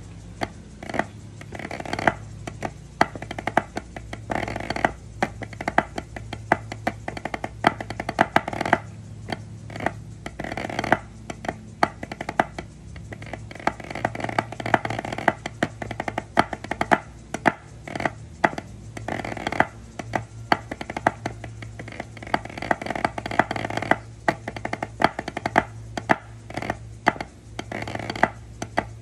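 Drumsticks playing quick strokes and rolls on a drum practice pad, in dense runs broken by short pauses.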